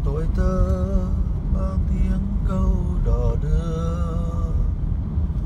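A vehicle riding along a road, with a steady low rumble of engine and road noise. Over it a voice sings long, wavering held notes.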